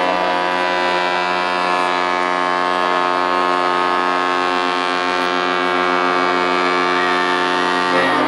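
Ship's horn sounding one long, steady blast, with the tone changing near the end.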